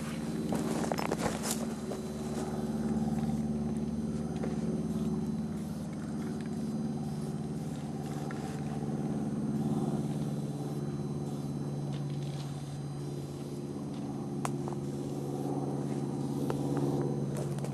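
Steady low drone of an idling diesel engine, with a few sharp clicks and taps on top, the loudest about a second in and again about three-quarters of the way through.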